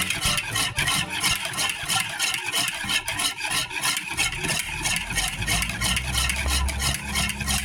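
A wire whisk beating a runny egg, sugar and yeast mixture in a ceramic bowl, clicking and scraping against the sides several times a second. A low hum comes in about five seconds in.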